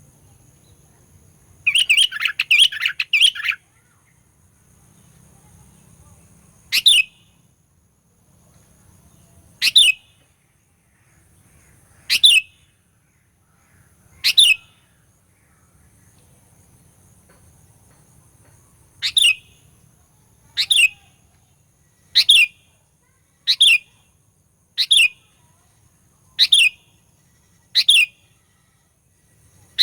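Sooty-headed bulbul (kutilang) calling: a quick chattering burst about two seconds in, then single sharp, falling call notes, a few seconds apart at first and about every one and a half seconds in the second half.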